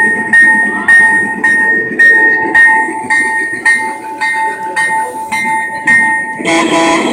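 Sound effect from a model train display: a bell ringing about twice a second, with each stroke fading before the next. It stops near the end, where a different steady tone, like a horn, starts.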